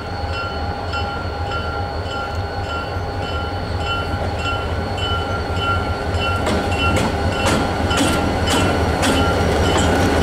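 EMD DDM45 diesel locomotives rumbling slowly toward and past, with a bell ringing about twice a second over the engine noise. From about six seconds in, sharp clicks of wheels over the rail joints join in and the sound grows louder as the locomotives draw alongside.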